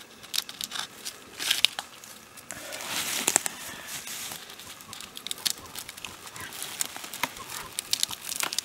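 Birch bark crackling and tearing as a knife slits it along a felled birch log, a rapid run of sharp clicks with a longer tearing stretch about three seconds in. These bark sounds are the sign of ideal harvesting conditions.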